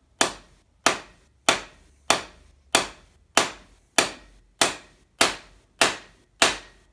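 Rubber mallet striking a cam bearing installer tool in steady, evenly paced blows, about eleven in all, driving a new cam bearing into an Allis-Chalmers engine block.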